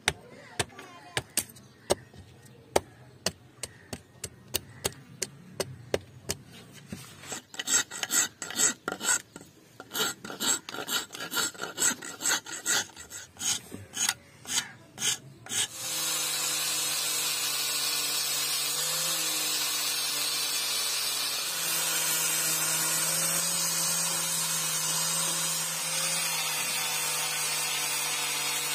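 A hand tool works the cleaver's wooden handle in rasping strokes, sparse at first and then quicker, about three a second. About 16 seconds in, an angle grinder with a sanding disc starts up and runs steadily, sanding the wooden handle.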